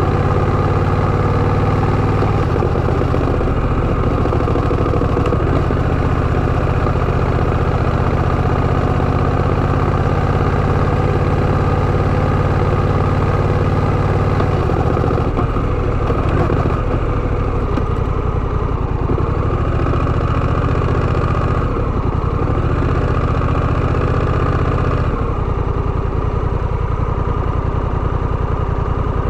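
Honda Rebel 1100 motorcycle's parallel-twin engine running steadily, its note changing around the middle and again near the end.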